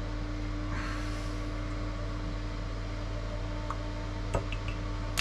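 A steady low mechanical hum, with a brief soft swish about a second in and two sharp clinks near the end, as a spoon is stirred in a cup of water.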